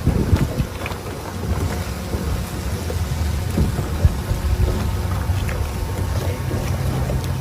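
Steady low motor hum, with wind gusting on the microphone.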